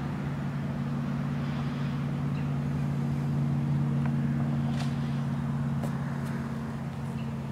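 Steady low engine hum running on without change of pitch, with a few faint clicks over it.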